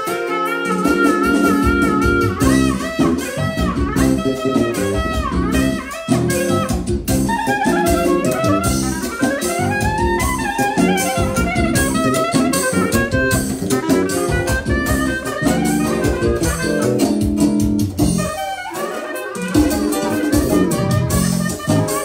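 Manele instrumental break: a fast, ornamented clarinet melody over a steady drum beat.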